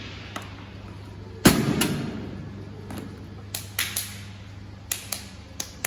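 A handful of sharp knocks and clicks at uneven intervals, the loudest about a second and a half in, over a steady low hum.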